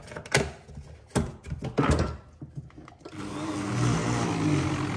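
A few sharp knocks, then about three seconds in the Braun MultiQuick 9 hand blender's motor starts and runs steadily, blending fruit and almonds with oat milk just added to ease the blending.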